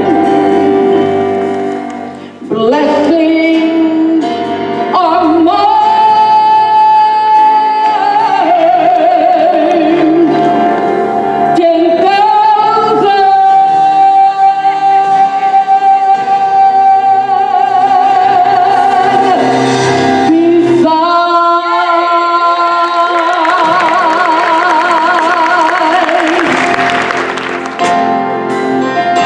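A woman gospel soloist singing long held notes with vibrato over instrumental accompaniment, pausing briefly twice between phrases.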